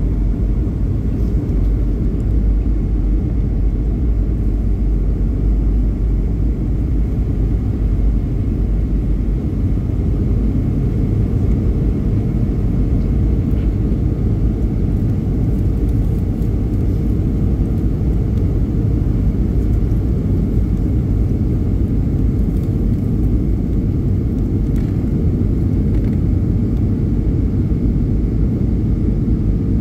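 Steady low rumble inside the passenger cabin of a Boeing 757-200 twinjet descending on approach: engine and airflow noise, with a faint steady tone above it.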